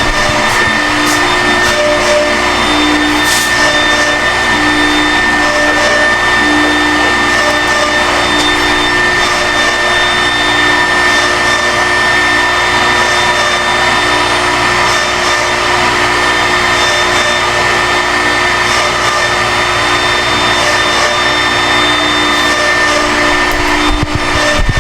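ShopBot CNC router carving a wooden sign: the router spindle gives a steady high whine over a loud, even rushing noise.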